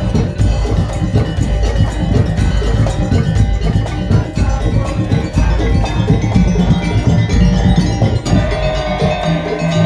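Madurese tong-tong (ul daul) percussion ensemble playing: fast, dense drumming and wooden knocks over heavy bass, with pitched metal percussion carrying a melody.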